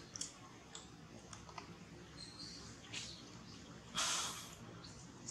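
Long-tailed macaque eating soft fruit: faint, scattered wet clicks and smacks of chewing. A short, louder rustle comes about four seconds in.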